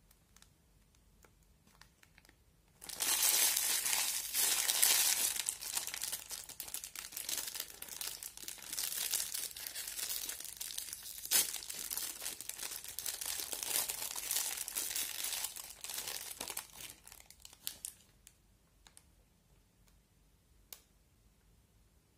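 Thin clear plastic wrapper crinkling steadily as it is pulled open and peeled off a bead-filled squishy toy. The crinkling starts suddenly about three seconds in and is loudest at first. It dies away at around seventeen seconds, and one small tick comes near the end.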